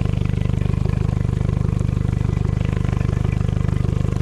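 Honda four-stroke outboard motor idling steadily, a low even engine note with a fast regular pulse.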